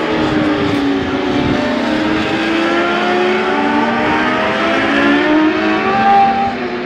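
Racing motorcycle engines at high revs, several bikes passing along the track at once. Their overlapping tones slide up and down in pitch and grow a little louder near the end.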